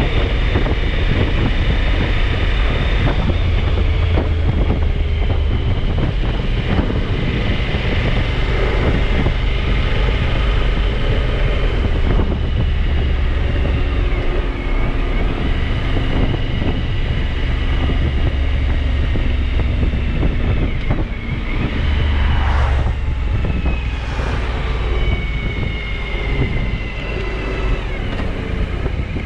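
Suzuki V-Strom 1000 motorcycle's V-twin engine running steadily on the road, with wind rushing over the microphone.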